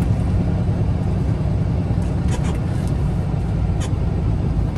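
Steady low rumble of a tractor-trailer's engine and road noise heard inside the cab while driving, with a few brief clicks around the middle.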